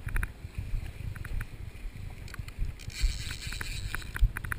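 Wind buffeting the microphone, broken by short runs of quick clicks from a fly reel's ratchet as it is handled on the rod.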